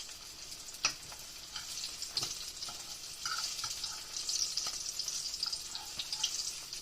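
Green tomato slices breaded in flour and cornmeal sizzling steadily as they fry, with a few sharp clicks and pops along the way.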